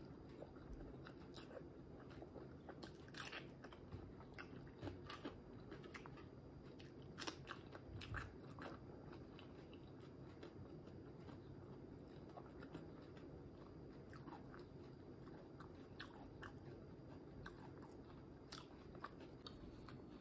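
Faint chewing of fried egg with the mouth closed: soft, wet mouth clicks and smacks, busiest in the first half and sparser later.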